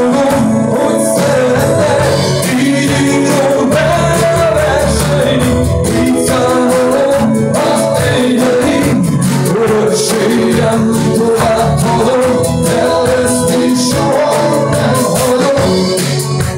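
Live band playing a song on acoustic guitar, drum kit and electric keyboard, with singing over a steady drum beat.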